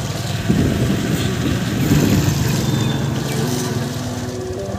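A motorbike's small engine running steadily while riding, with wind rushing over the microphone.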